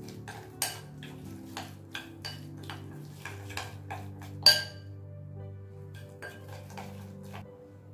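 A spoon scraping and clinking against a glass mixing bowl as it stirs a thick, crumbly spice mix, about three strokes a second. One sharper ringing clink comes about halfway through, and the strokes thin out after it. Soft background music plays underneath.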